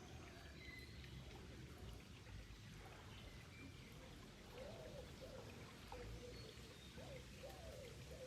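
Faint running water with birds calling: a few short, high chirps in the first seconds, then a run of low, arched hooting or cooing notes from about halfway through.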